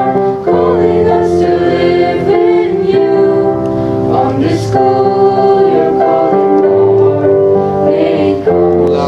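A mixed school choir singing a hymn to keyboard accompaniment, holding each note for a second or so before moving to the next.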